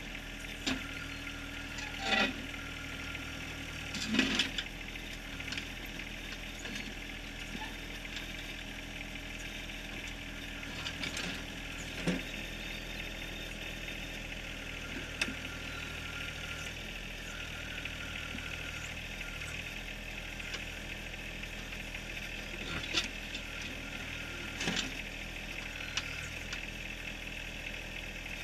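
John Deere 1023R compact tractor's three-cylinder diesel running steadily while its backhoe digs, with scattered sharp clanks and knocks as the bucket strikes rock and gravel, about eight times.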